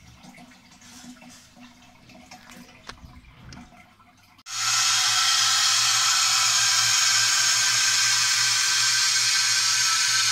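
Faint trickling and small clicks of water in a toilet cistern. About four and a half seconds in, a steady, loud hiss of water starts suddenly: the cistern's new Nova fill valve running as it refills the tank.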